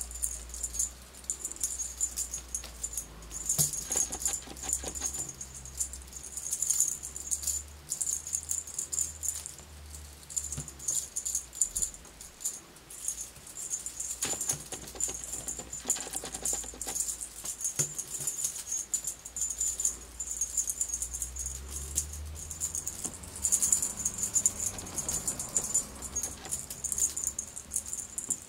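Cat toy shaken close by: a continuous fast, light, high-pitched jingling rattle.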